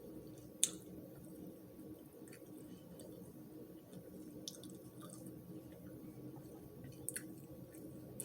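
A person eating: faint chewing and wet mouth sounds, with one sharp click a little over half a second in and a few softer clicks later, over a low steady hum.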